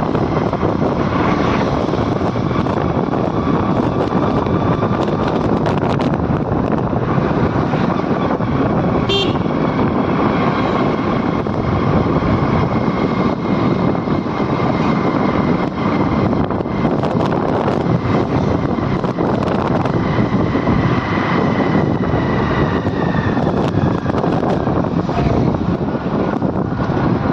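Steady rushing road and wind noise from riding in a moving vehicle, with a faint high whine running through it and a brief high chirp about a third of the way in.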